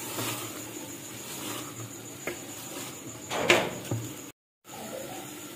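Wooden spoon stirring and scraping keema and potato cubes frying in a pressure cooker, with a few knocks of the spoon against the pot, the loudest about three and a half seconds in. The sound cuts out briefly just after four seconds.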